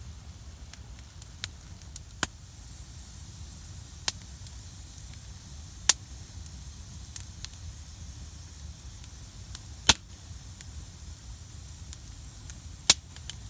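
Wood campfire of burning logs crackling, with sharp irregular pops; the loudest come about six, ten and thirteen seconds in.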